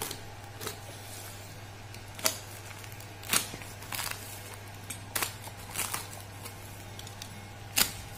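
Plastic mailer bag being slit with a utility knife and pulled apart by hand: sharp crinkles and rustles of the plastic, spaced a second or so apart.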